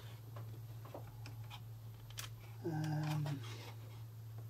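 Faint scattered clicks and taps of parts and tools being handled while a UPS is taken apart, over a steady low hum. A brief hummed "hmm" comes about three seconds in.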